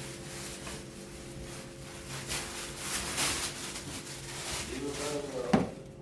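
Faint scuffing and handling noises over a steady low hum, then a short vocal sound near the end and a sharp knock just before it stops.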